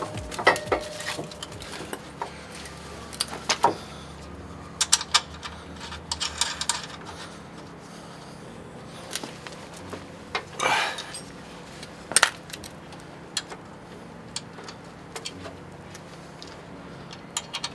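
Scattered metallic clinks and taps of nuts, bolts and tools as the new coilover's top mount bolts are fitted, with a short scrape about eleven seconds in.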